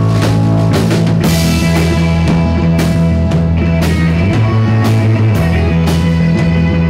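Live rock band playing an instrumental passage of electric guitars, bass and drum kit, with a steady drum beat and a cymbal crash about a second in.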